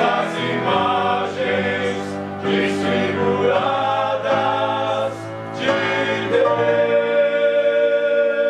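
Singing from a stage musical, accompanied by piano and accordion, the voices holding long notes.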